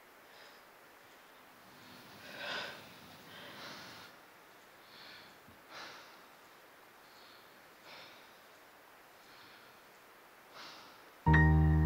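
Soft breaths through the nose from a person, a faint puff every second or so, the strongest about two and a half seconds in. A piano starts playing loudly near the end.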